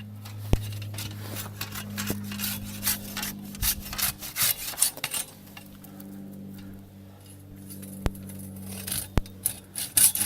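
Hand saw cutting through a fallen tree trunk, rasping back and forth in runs of strokes that thin out after the middle. The cut is pinching the saw.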